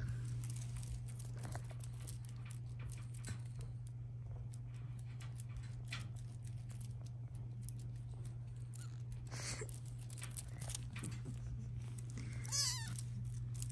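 British shorthair kittens playing on a fabric blanket: scattered soft rustles and taps, and one high, wavering kitten mew near the end.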